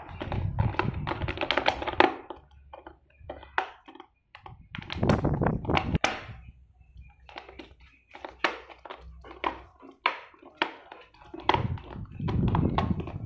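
Golden retriever chewing an empty clear plastic water bottle, the thin plastic crackling and crunching under its teeth in irregular spells with short pauses between.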